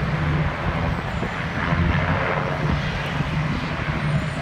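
Helicopter engine and rotor running with a steady noise, mixed with wind on the microphone.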